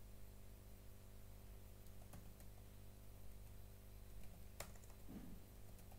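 Faint, scattered computer keyboard keystrokes, a few separate clicks over a steady low hum.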